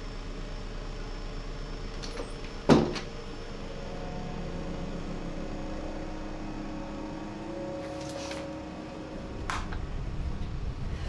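A door or latch clacks once, sharply, a few seconds in. A kitchen appliance then hums steadily, with a couple of softer clicks later.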